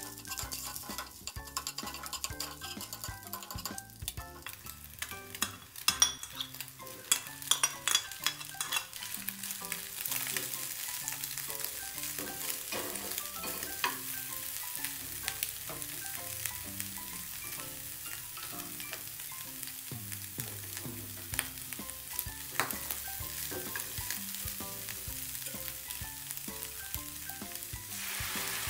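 Scrambled egg with chopped chicken, liver and vegetables frying in oil in a nonstick pan, sizzling steadily while a metal spatula stirs and scrapes against the pan, with sharp clinks of the spatula in the first ten seconds or so. Near the end the sizzle grows louder as water is poured into the hot pan.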